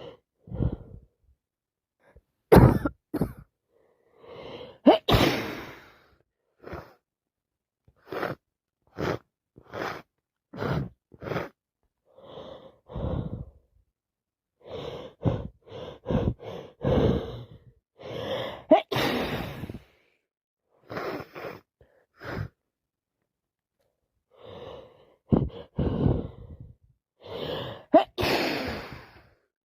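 A woman with a heavy, wet head cold sniffling, gasping and breathing hard in a string of short bursts, with sharp, loud sneeze-like outbursts about 2.5 and 5 seconds in, near the middle and near the end.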